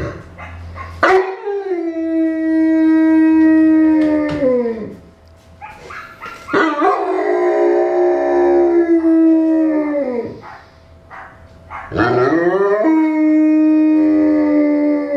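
Newfoundland dog howling: three long howls, each rising quickly, holding a steady pitch for a few seconds and sliding down at the end, with short pauses between them.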